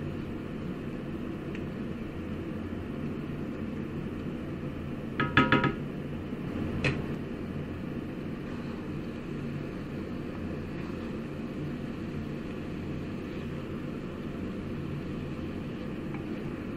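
Wooden spatula stirring chicken and sauce in a cast iron wok, over a steady low background noise. About five seconds in there is a quick run of three ringing clinks, and about a second later a single knock.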